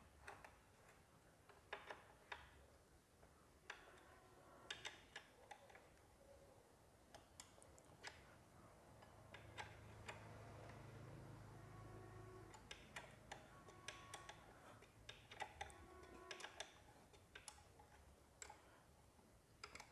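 Faint, scattered metallic clicks and taps of a hand tool and small washers and fasteners being worked at a motorcycle's front fork, at the mudguard mount. A faint low hum rises for a couple of seconds midway.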